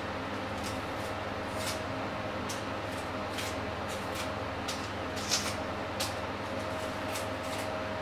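Small kitchen knife peeling onions by hand: short, dry scrapes and crackles of the papery skin come irregularly, about one to two a second, with a sharper one about five seconds in, over a steady room hum.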